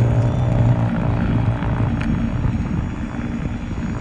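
EGO SNT 2100 cordless electric snow blower running at full throttle, its motor and auger hum fading as the machine moves away, over a low rumble of wind.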